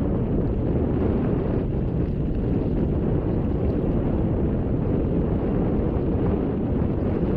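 Wind buffeting the microphone: a steady, low rushing noise with a few faint ticks.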